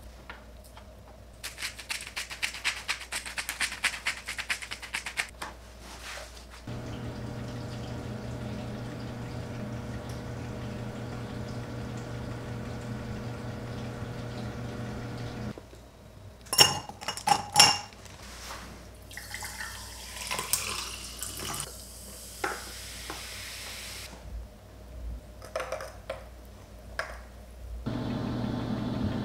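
Oven running with a steady hum, broken about halfway by a few sharp metallic clatters of the baking tray and a hiss; a few seconds of dense crackling rustle come first, and the hum returns near the end.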